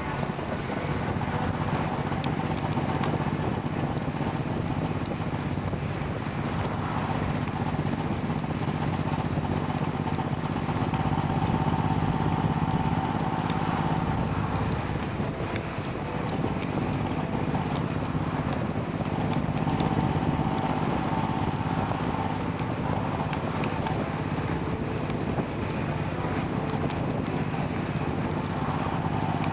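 Motorcycle engine running steadily at cruising speed on the open road, with wind noise over it.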